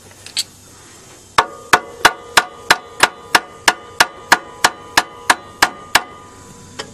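Hammer blows on metal, about fifteen sharp, ringing strikes at roughly three a second, knocking at a seized alternator to free it. A couple of light taps come before the blows.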